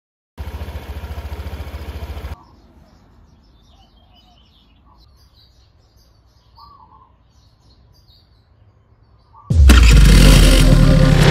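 Honda PCX 150's single-cylinder four-stroke engine running with an even pulse for about two seconds, then cutting off abruptly. Birds chirp faintly after that, and loud music starts near the end.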